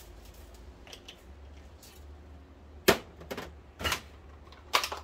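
Sharp knocks and clacks on a wooden chopping board during food preparation, about four in the second half, roughly a second apart.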